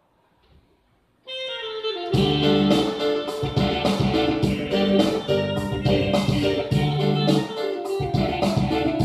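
Instrumental song intro on an electronic keyboard: a held note comes in about a second in, then a full accompaniment with a steady beat starts about two seconds in and carries on.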